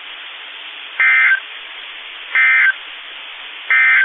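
NOAA Weather Radio SAME end-of-message data bursts: three short, identical warbling digital bleeps about 1.3 seconds apart, over steady radio hiss, marking the end of the severe thunderstorm warning broadcast.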